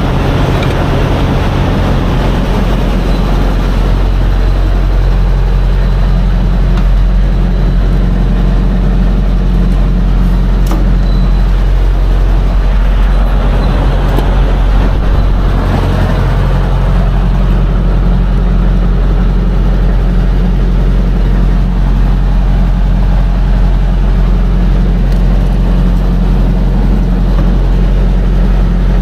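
Diesel engine idling steadily, a loud low drone, with a rushing hiss that swells for a few seconds about midway.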